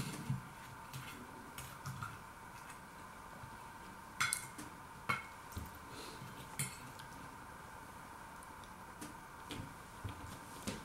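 Knife and fork clinking and scraping on a plate while cutting into a fishcake, with a few sharp clinks between about four and seven seconds in. A steady faint hum runs underneath.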